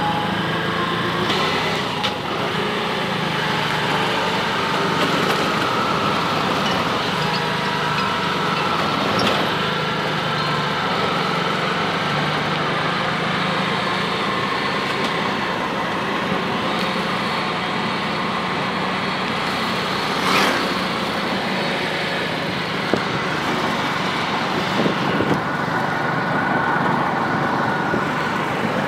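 Small engine running steadily, heard from on board as the vehicle moves, a constant drone with a few brief knocks.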